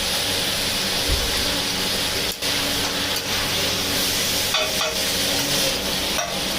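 Chicken masala frying in hot oil in a pan: a steady sizzle, dipping briefly about two and a half seconds in.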